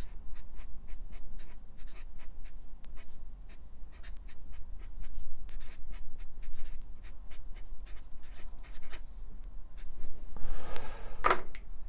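Red felt-tip marker writing on paper: many short stroke sounds in quick, irregular succession as letters are formed.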